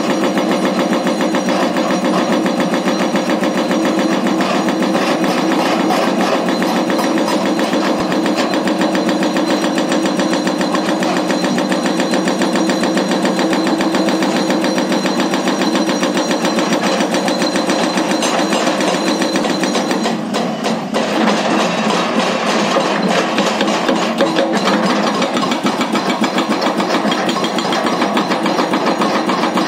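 Hitachi hydraulic breakers mounted on Hyundai excavators hammering rock in a rapid, continuous stream of blows over the excavators' diesel engines running. The hammering briefly eases about two-thirds of the way through, then picks up again.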